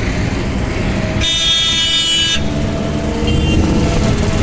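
A vehicle horn blares for about a second, a high-pitched tone with many overtones, over dense city traffic and engine noise. Fainter horns toot briefly later on.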